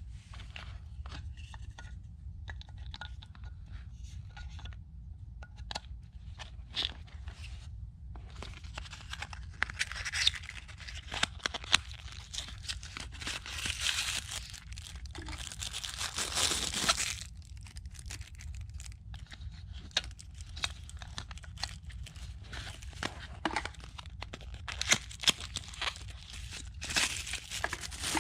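Packaging being handled and torn open by hand: crinkling, tearing and rustling with scattered clicks, busiest through the middle and again near the end.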